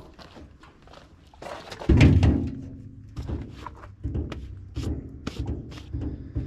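Handling knocks in a workshop: one heavy, hollow thunk about two seconds in that rings briefly, followed by a run of lighter knocks and clicks.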